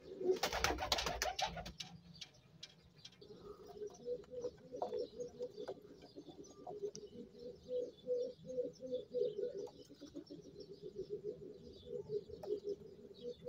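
A loud flurry of rustling and clatter in the first second or two, then domestic fancy pigeons cooing: a low, fast-pulsing coo that goes on steadily from about three seconds in, with faint high chirps above it.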